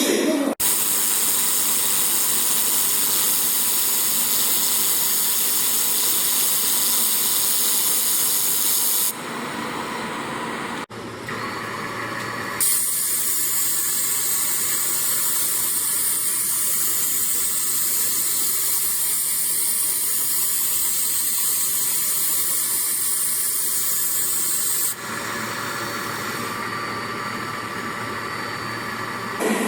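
Handheld fiber laser welder making two long welds, each a steady hiss lasting about eight and twelve seconds. A lower, steadier machine noise continues between and after them.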